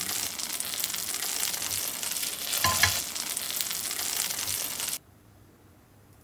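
Food sizzling in a frying pan: a steady crackling hiss with a couple of knocks from a utensil near the middle. It cuts off suddenly about five seconds in.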